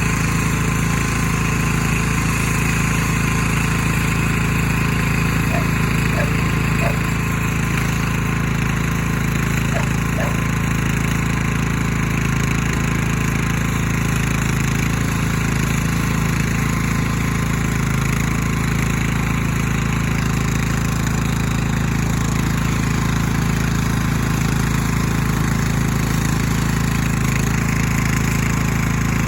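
Two-stroke chainsaw engine running steadily at high speed without changes in pitch, as when cutting into a tree trunk.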